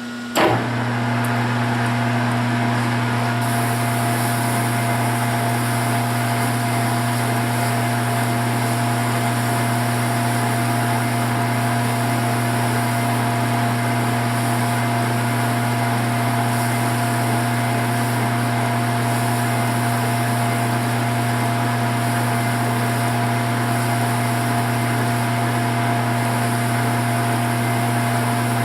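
Metal lathe running steadily, its motor and drive giving an even hum with a faint high whine. It comes in with a click just after the start.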